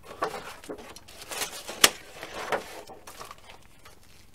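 Clear plastic bags of model-kit sprues and paper sheets rustling and crinkling as they are handled in a cardboard box, with a few light taps and one sharp click a little under two seconds in, the loudest sound.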